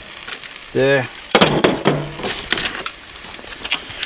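Aluminium foil crinkling in a run of sharp crackles, with a few clicks, as it is handled around a resting steak.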